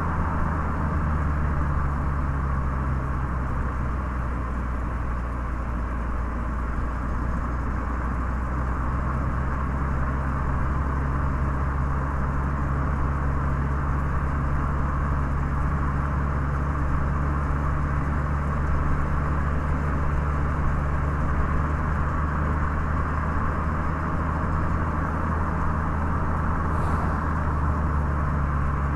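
Car driving along steadily: a low, even engine and drivetrain drone under a constant hiss of tyres on the road.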